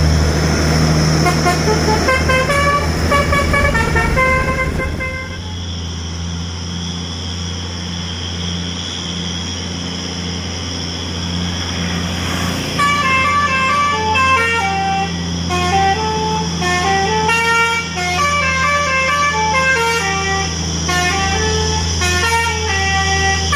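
A truck's engine running with a steady low drone, with a tune of stepped, horn-like notes playing over it for the first few seconds and again from about halfway on.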